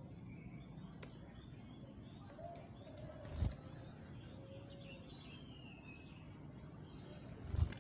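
Faint bird calls: a low, wavering cooing that comes back several times, with a few short high chirps and falling whistles a little past the middle. Two dull low thumps, about three and a half seconds in and near the end, are the loudest sounds.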